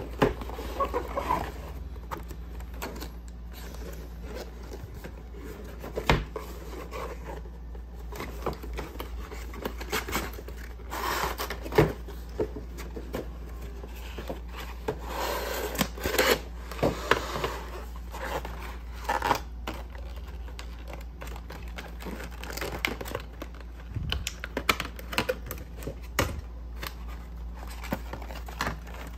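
Cardboard and plastic packaging being handled: a box flap opened and an inner cardboard tray with a clear plastic window slid out of its sleeve, with scraping, rustling and scattered sharp clicks and taps.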